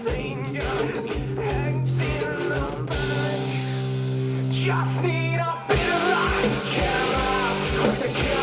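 Rock song with singing, guitar and drums played back through compact studio monitor speakers and picked up by a microphone. The drums drop out for a stretch of held notes, then after a brief break a little past halfway the full band comes back in louder.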